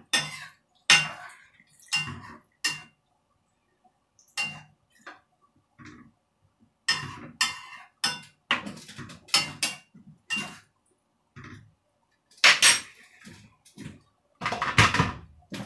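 A metal spoon clinking and scraping against a frying pan of simmering curry as it is stirred: irregular knocks, a few louder ones, with short pauses.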